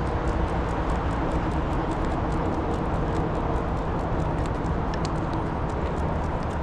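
Footsteps in a quick, regular patter, about four a second, over a steady low rumble.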